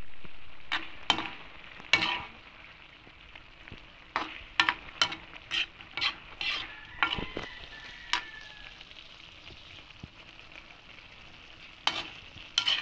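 Menudo giniling (ground pork stew in tomato sauce) sizzling and simmering in a pan with a steady hiss, while a spatula stirs it, clacking and scraping against the pan about a dozen times.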